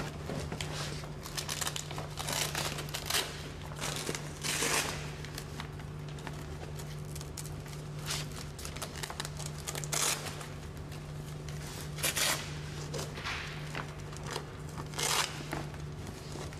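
Fabric storage bags rustling and crinkling in short, irregular bursts as they are pulled into a metal trolley frame and their straps fastened around its tubes.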